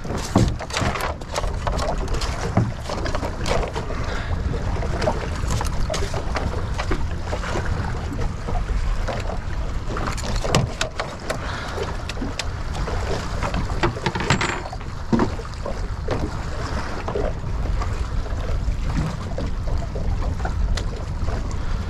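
Wind buffeting the microphone and choppy water lapping against a small boat's hull, with many scattered knocks and taps from a fish and tackle being handled on the deck.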